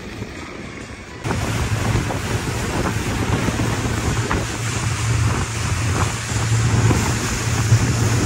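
Small motorboat under way on open sea: wind buffeting the microphone and water rushing past the hull over a steady low motor hum, starting suddenly about a second in.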